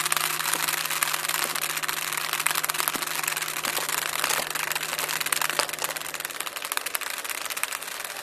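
Lines of iPhones toppling like dominoes: a fast, continuous clatter of phones knocking over one onto the next.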